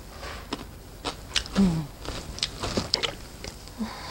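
A person chewing a slice of pickled ginger: scattered mouth clicks and smacks, with a short hummed "mm" about one and a half seconds in.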